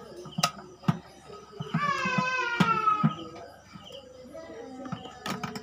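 A child's high, drawn-out cry in the background about two seconds in, jumping up and then slowly falling in pitch, over scattered plastic clicks and knocks as the fuel pump assembly is worked out of the motorcycle's fuel tank.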